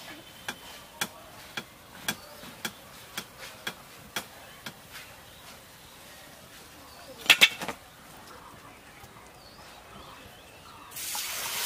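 Light clicks about twice a second, then a few sharper clinks a little past halfway. Near the end, hot oil in a wok starts sizzling steadily as a batter-coated potato chop (aloo chop) goes in to deep-fry.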